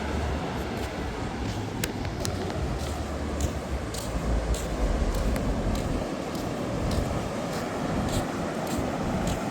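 Steady outdoor rush of noise, with wind rumbling on the microphone through the first half and scattered light clicks throughout.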